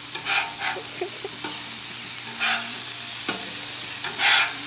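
Burger patties and hot dogs sizzling on a Blackstone flat-top griddle: a steady frying hiss, with a few short louder bursts of sizzle and a faint low steady hum underneath.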